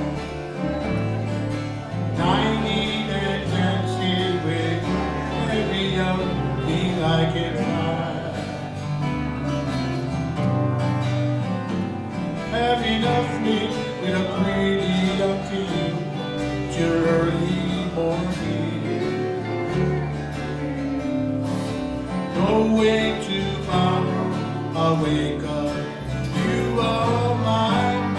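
Live country music from a small band, with guitars carrying the tune over a steady bass line.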